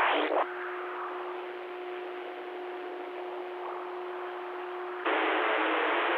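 CB radio speaker between transmissions: channel hiss with a steady low tone. About five seconds in, a louder burst of static switches on abruptly as another station keys up.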